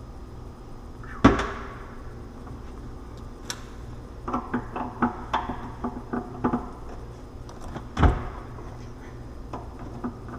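Kitchen cabinet doors on concealed hinges being shut, with two sharp knocks, about a second in and again about eight seconds in, and a string of small clicks and taps in between as the hinges are worked.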